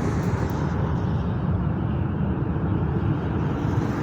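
A steady, deep rushing roar from the sky, sounding like a giant blowtorch, whose source is not seen.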